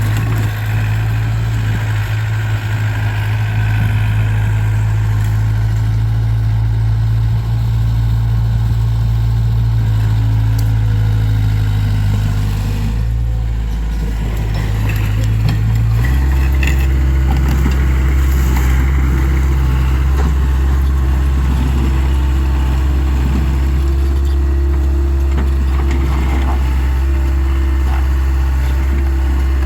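Takeuchi TL26 skid steer's diesel engine running steadily; about half way through, its note drops lower in pitch and grows stronger.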